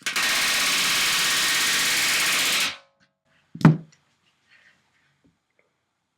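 Pneumatic rivet gun hammering a rivet in one steady burst of about two and a half seconds, followed a second later by a single sharp knock.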